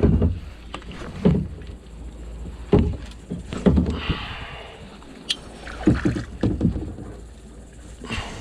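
Irregular knocks and bumps from a small fishing boat and the gear being handled in it, a thump about every second or so.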